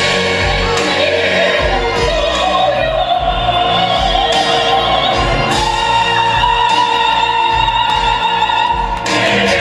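A solo singer in an operatic style, holding long notes with vibrato over a musical accompaniment with a steady low beat; one long note is held through the second half.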